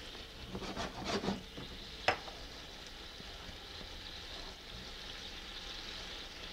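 Shiitake mushrooms simmering in soy sauce and water in a hot skillet: a steady faint sizzle, with a brief flurry of sputtering from the first second or so as water is poured into the pan. A single sharp click about two seconds in.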